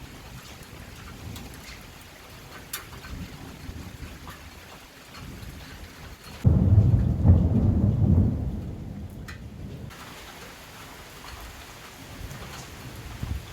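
Steady rain with scattered drop ticks. About halfway through, a loud, low thunderclap starts suddenly and rumbles for about three seconds before fading.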